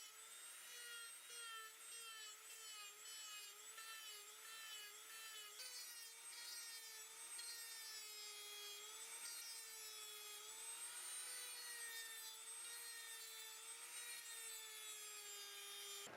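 Dremel rotary tool grinding down a rubber sneaker sole: a steady high whine that wavers up and down in pitch as the tool bears into the rubber.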